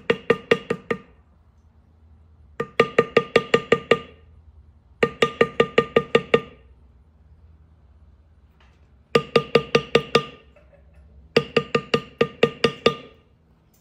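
A mallet tapping a metal leather-tooling stamp into thick saddle leather, in quick runs of about seven ringing taps each, with short pauses between runs. The tool is being driven in to press a deep impression into the leather.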